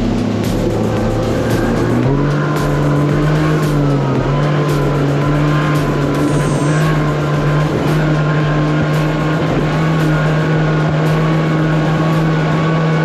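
Engine running steadily under power, its pitch stepping up about two seconds in and then holding, with light knocks scattered through it.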